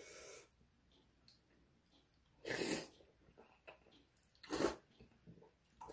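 A person slurping Korean ramyeon noodles: two short, loud slurps, about two and a half seconds in and again just before five seconds.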